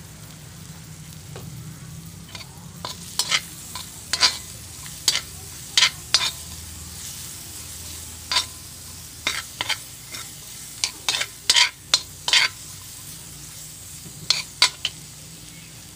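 Metal spatula scraping and knocking against a metal wok in irregular strokes, stirring garlic, onion and chorizo that sizzle steadily in oil underneath.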